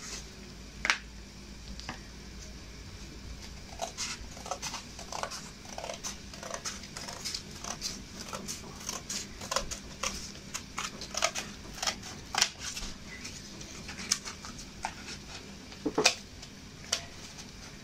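Scissors cutting through a sheet of cardboard: a run of irregular snips and crunches, several a second, starting a few seconds in, with a louder snap near the end.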